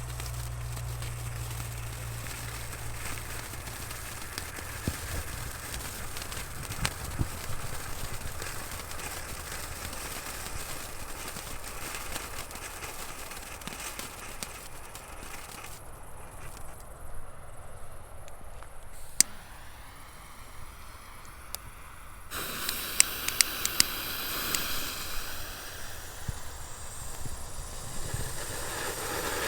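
Small consumer fireworks crackling, with scattered sharp snaps and a few louder pops. The sound changes abruptly twice, about halfway and about three quarters of the way through, as between separate shots.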